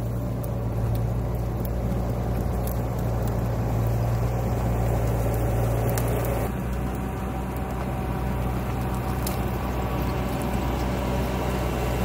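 Bobcat T650 compact track loader's diesel engine running steadily while it works a root grapple through brush and dirt, with a few faint clicks from the tracks and debris.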